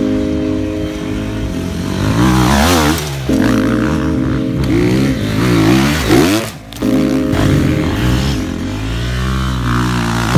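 Motocross dirt bike engine revving up and down as the bike rides the track, its pitch rising and falling several times.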